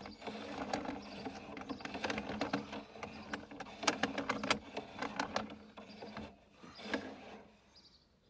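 Drain inspection camera's push-rod cable being fed down a drain, clicking and rattling irregularly over a steady low hum, with the clicks thinning out near the end.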